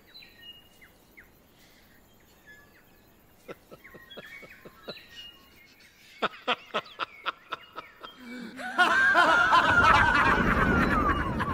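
Soft birdsong, then a run of short chuckles about six seconds in, giving way to louder laughter near the end.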